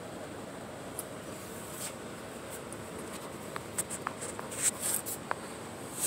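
Steady background hiss with a faint high whine, and a scatter of light rustles and small clicks in the second half, from a phone being handled and moved around.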